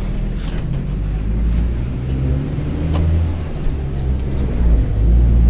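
Mercedes-Benz OF-1722M bus driveline under way: the diesel engine runs steadily with a rumbling driveshaft (cardan) underneath, getting louder near the end. One sharp click about three seconds in.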